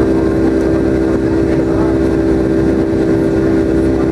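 Cabin noise of a Boeing 757-200 in the climb, heard from a window seat over the wing: its Rolls-Royce RB211 engines give a loud, even drone over a steady low hum.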